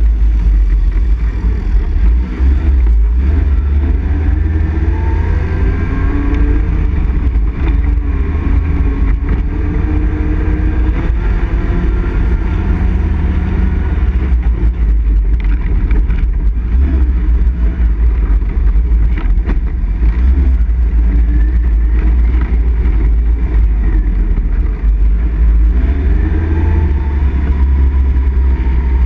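ATV engine running under way on a rough dirt trail, its pitch rising and falling as the throttle opens and eases, over a heavy, steady low rumble.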